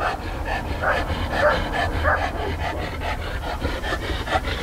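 American Bulldog panting fast and rhythmically through a basket muzzle.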